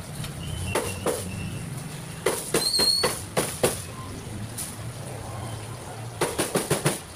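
A cleaver chopping roast chicken on a cutting board: quick runs of sharp knocks, the last and densest run near the end, over a steady low hum.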